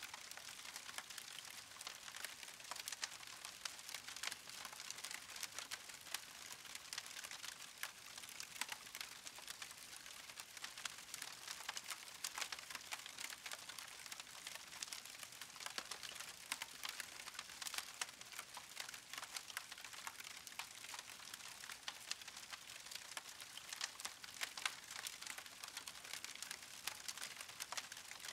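Fire crackling steadily: a dense run of small pops and snaps over a soft hiss.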